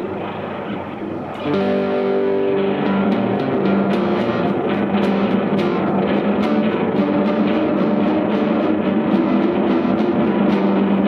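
Overdriven fretless electric guitar played with a slide through a delay pedal in Deluxe Memory Man mode, its delay time stepped by an analog expression sequencer. A new note rings out about one and a half seconds in, followed by a steady run of repeating attacks.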